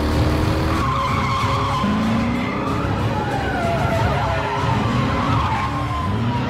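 Car chase: engines running hard and tyres squealing in long, wavering, falling screeches as a Chevrolet Camaro and a police sedan slide through a turn.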